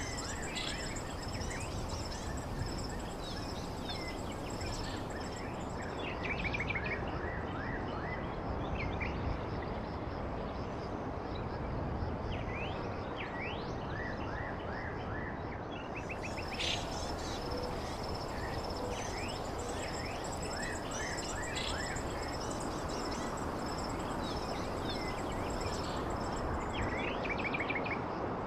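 Nature ambience: birds chirping in short repeated calls and insects trilling steadily at a high pitch, over a constant rushing background noise.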